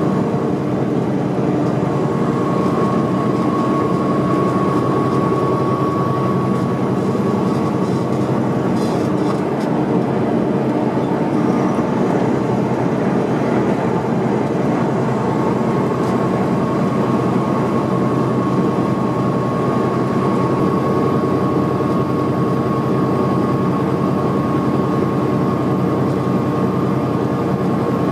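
Peterbilt semi-truck's diesel engine and road noise droning steadily inside the cab while cruising at highway speed, with a steady higher tone over the drone.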